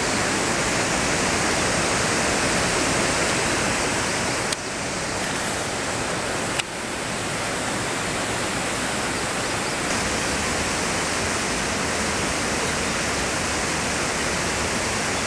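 Steady rushing of water pouring down a concrete inflow chute into a reservoir, a loud, even noise with two brief dips where the sound cuts.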